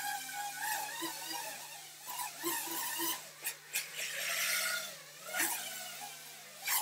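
Small FPV quadcopter's motors whining, the pitch rising and falling with throttle, with several sharp clicks in the second half.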